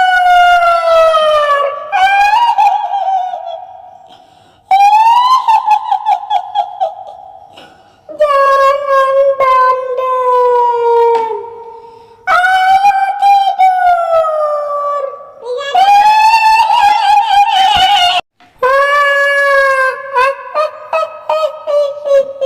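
High-pitched kuntilanak ghost wailing: about six long drawn-out cries of a woman's voice in a row, each two to four seconds, mostly sliding down in pitch. Some cries break into a fast, shaky quavering like eerie cackling.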